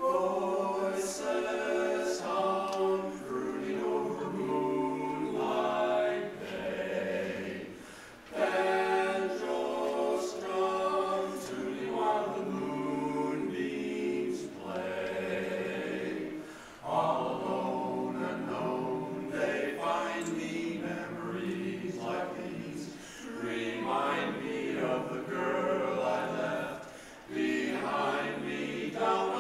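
Male barbershop quartet singing a cappella in close four-part harmony, in long phrases with brief breaks about 8, 17 and 27 seconds in.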